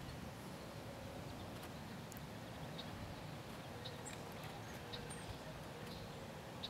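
Faint, steady outdoor background noise with a few light clicks and taps scattered through it.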